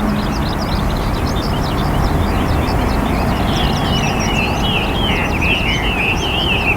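Many small birds chirping in quick, high notes over a loud, steady rushing noise; from about halfway in, a warbling bird call joins them.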